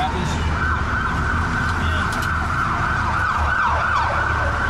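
An emergency vehicle siren sounding a steady high note, with a few short falling sweeps a few seconds in, over the low, steady running of the fire engine.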